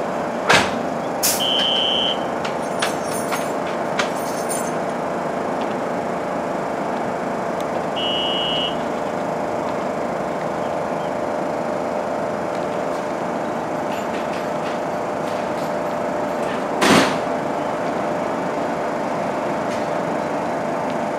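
A New York City subway train standing at the platform, its equipment humming steadily with several mixed tones. Two short high beeps come about six seconds apart, the first near the start. A few light clicks come early on, and a single short, sharp burst of noise comes about two-thirds of the way through.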